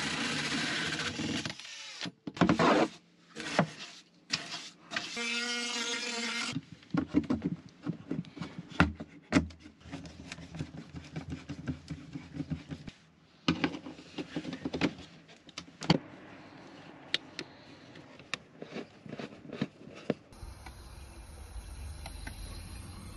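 Cordless drill with a hole saw cutting through a van's interior wall panel in several short runs, the motor whining as it spins up between cuts. Then a series of clicks and scrapes as a round plastic vent is fitted into the hole and screwed in by hand, and near the end a steady low outdoor rumble.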